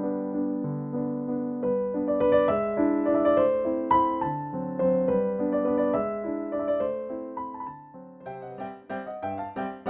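Background piano music, a gentle melody over chords with notes changing about every half second.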